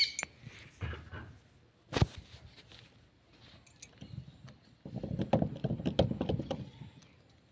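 Metal knocking and rattling at a John Deere tractor's front wheel hub as it is worked by hand. There is a single sharp knock about two seconds in, then a second or so of dense clattering.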